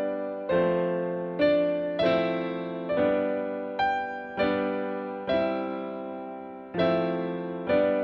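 Soft instrumental piano music: gentle chords struck about once a second, each left to ring and fade before the next.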